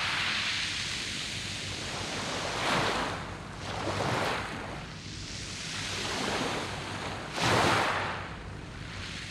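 Waves breaking and washing over a pebble beach, the surf swelling and ebbing in several surges, the loudest one about three-quarters of the way in.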